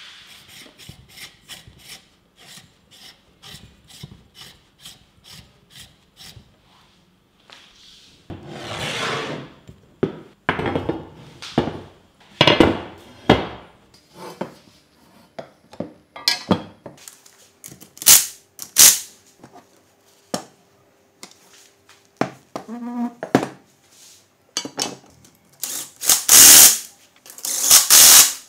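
Hand-tool work on a vintage ice shaver under restoration: a run of small clicks and taps, then irregular rubbing and scraping strokes, with a few short, sharp noisy bursts near the end.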